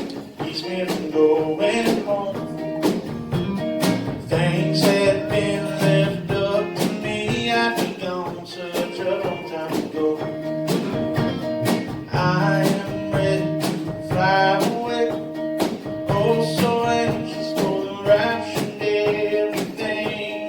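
Country-style gospel song with guitar, played to a steady beat; no sung words can be made out.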